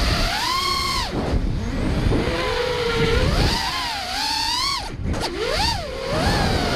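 Four Emax 2306 2400kv brushless motors spinning Emax Avan R propellers on an FPV racing quadcopter, whining with a pitch that rises and falls sharply as the throttle is punched and chopped, over a low rumble. The pitch climbs about half a second in, drops away around one second, climbs again from about three and a half seconds, and dips briefly near five seconds before a short surge.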